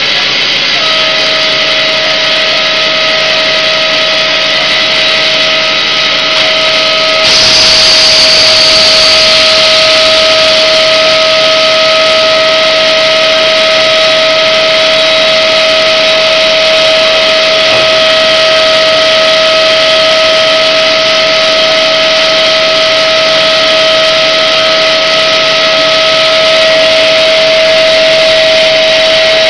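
Extrusion blow molding machine for 4-gallon HDPE bottles running: steady loud machine noise with a constant high whine. About seven seconds in, a louder hiss comes in suddenly and lasts about two seconds.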